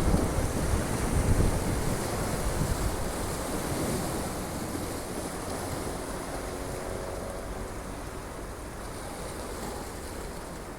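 Sea surf washing on the shore, with wind buffeting the microphone in gusts that are strongest in the first couple of seconds and then ease.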